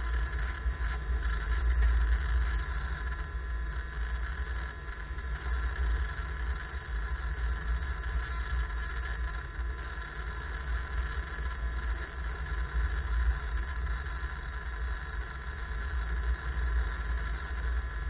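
Steady drone of a small aircraft's motor in level flight, heard from a camera mounted on the aircraft, with heavy wind rumble on the microphone.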